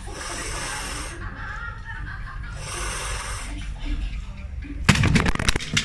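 Loud, heavy breaths as the breaker prepares, then about five seconds in a hand chop strikes the stacked boards: a burst of sharp cracks and clatter lasting about half a second. This third try is, by the breaker's own account, a bit too hard and not so successful.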